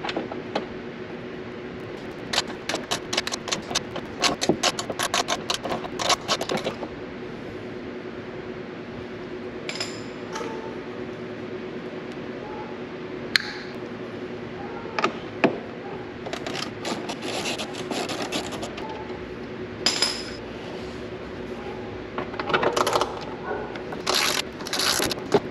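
Rapid runs of clicks from a ratchet backing out small wheel-liner fasteners, with single sharp clicks as screws and plastic nuts drop into a plastic cup. A faint steady hum runs underneath.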